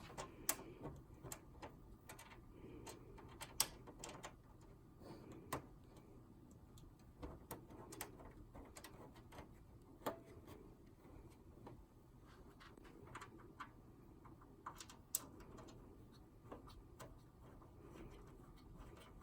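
Scattered faint clicks and ticks of a screwdriver and screws as a computer case lid is screwed shut.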